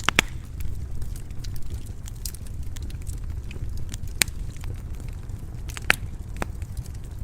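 Wood fire crackling: a steady low rumble of flames under scattered sharp pops and snaps, the loudest just after the start, about four seconds in and about six seconds in.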